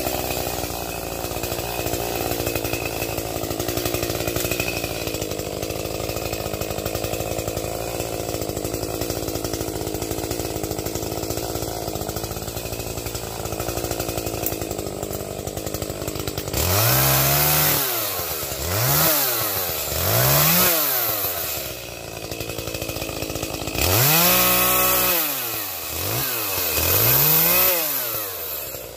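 Gasoline chainsaw running steadily, then from a little past halfway revving up and down, louder, in two runs of about three rises and falls each.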